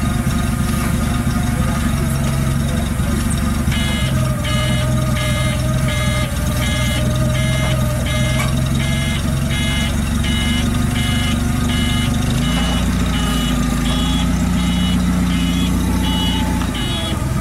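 TCM forklift's engine running steadily, with its reversing alarm beeping about three times every two seconds from about four seconds in as it backs the huge tire off the truck's hub. About twelve seconds in, the engine speeds up and holds the higher speed.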